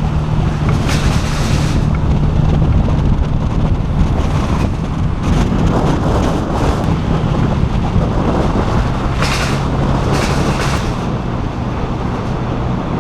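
A car driving along a road: a steady engine hum and tyre noise, with several short swells of wind rush.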